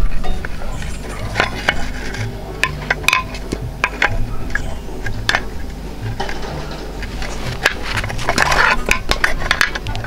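Steel rebar bender and bending-plate pins clinking and scraping against a 9 mm round steel bar as it is levered into a U bend, in many short irregular metallic clicks.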